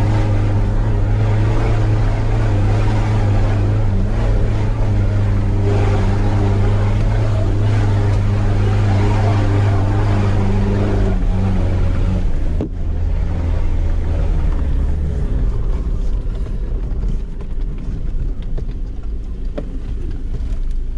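Land Rover Defender 90 engine pulling steadily under load as it climbs a steep dirt track in second gear, high range. About two-thirds of the way through, the sound changes abruptly and the engine note drops lower and quieter.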